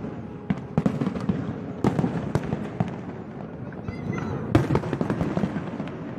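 Fireworks display: aerial shells bursting in an irregular run of sharp bangs and crackles. The loudest bang comes about four and a half seconds in.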